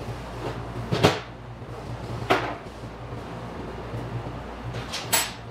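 Three sharp metal clunks of transmission parts being handled on a steel workbench, the first, about a second in, the loudest. A steady low hum runs underneath.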